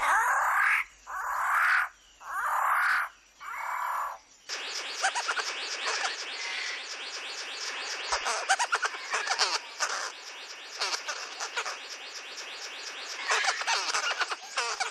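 New Guinea rainforest birds calling: first four loud calls, each just under a second long, then from about four seconds in a dense, unbroken chorus of quick chirps and twitters.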